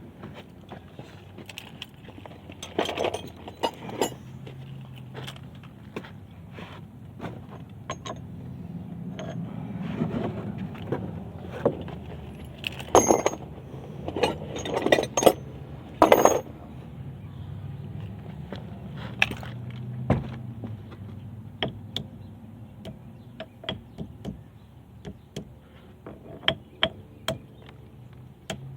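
Metal hand tools and car parts clinking and knocking at irregular intervals during work on a car's front axle, with the loudest knocks clustered about halfway through. A low steady hum runs underneath.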